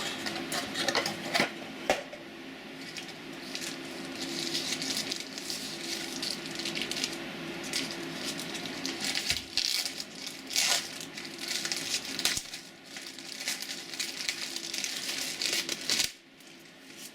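Packaging crinkling and rustling, with scattered clicks and knocks, as a new digital multimeter is unwrapped and handled. A steady low hum runs underneath, and the handling stops about a second before the end.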